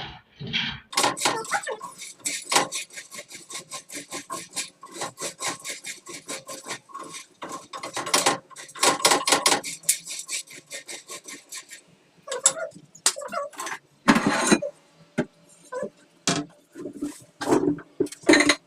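Kitchen knife chopping greens on a cutting board: quick, even strokes, several a second, for about ten seconds, then a few slower, separate knocks.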